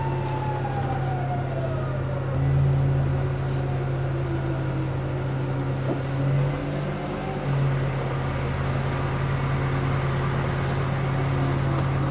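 Orion VII Next Generation hybrid bus heard from on board: a steady low drivetrain hum under an electric drive whine that falls in pitch as the bus slows over the first few seconds, then rises briefly about halfway through as it pulls away again.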